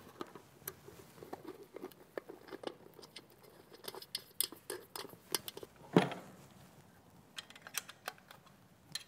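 Light clicks and small knocks of a screwdriver and screws as the plastic safety shields are fitted onto a stainless steel pump, with one louder knock about six seconds in.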